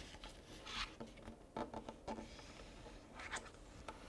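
Paper being handled and folded by hand on a cutting mat: a handful of short, faint rustles and scrapes as the sheet is slid, turned and creased.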